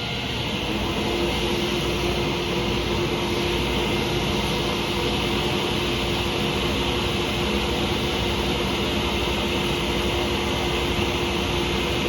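Table saw running steadily with no cut under way: an even whir with a constant hum in it.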